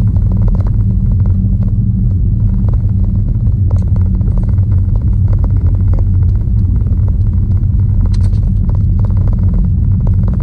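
A car engine idling with a steady low rumble, with close-up chewing and mouth clicks over it.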